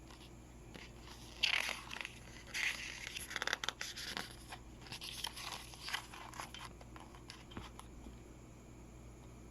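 Paper rustling and crinkling as a CD booklet is handled and its pages turned, in irregular bursts over several seconds starting about a second in.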